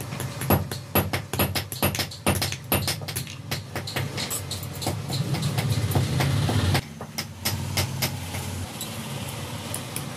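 Hand hammer striking a pair of pliers on a small steel anvil block, peening the pivot rivet with quick, irregular metal-on-metal blows. The blows come thick for about seven seconds, then sparser. A low hum runs behind and drops suddenly about seven seconds in.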